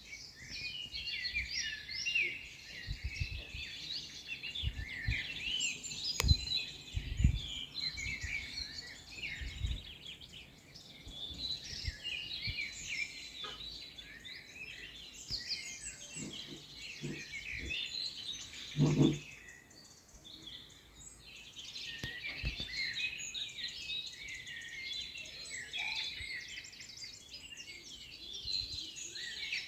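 Many songbirds chirping and singing at once in a dense, continuous chorus, with scattered low thumps. About 19 seconds in, a short, loud, lower-pitched call or cry stands out.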